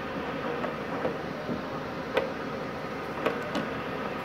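A few short clicks and knocks of a MIG welding torch's connector being pushed and turned into the welder's front torch socket, over a steady background hum.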